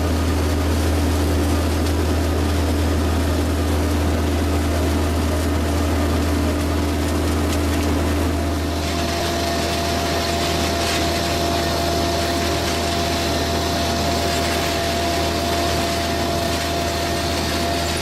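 Engine of a potato harvester running steadily, a low drone with a fixed hum above it; a harsher high-pitched noise joins about nine seconds in.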